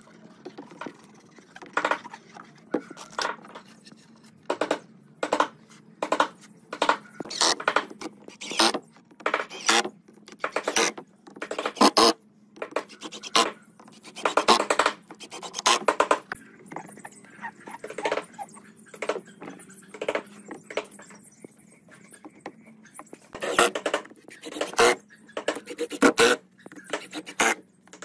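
A hand tool scraping or rasping across wood in short, irregular strokes, about one or two a second, with a short lull past the middle.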